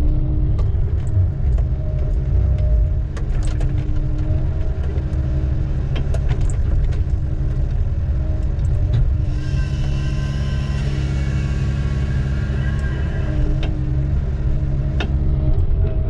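Diesel engine of heavy logging equipment running steadily under load, with scattered sharp knocks and clanks. From about the middle for several seconds, a higher whine rides over the engine.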